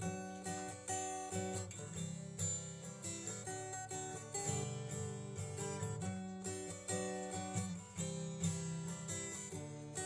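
Background music of strummed acoustic guitar.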